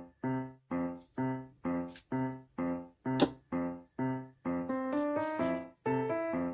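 Background music on a keyboard: short, evenly repeated chords about two a second, with a held melody line coming in about four and a half seconds in. A single sharp click about three seconds in.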